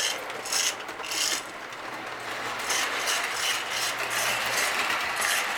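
Lionel Iron Horse O-27 toy steam train running on three-rail track, its motor whirring over the rails. The bead-filled drum under the tender gives a rhythmic chug-chug that quickens as the train picks up speed.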